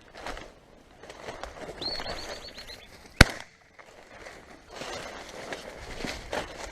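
A single shotgun shot, sharp and loud, about three seconds in. It is preceded by a quick run of high, evenly repeated chirps, and followed by rustling movement through vegetation.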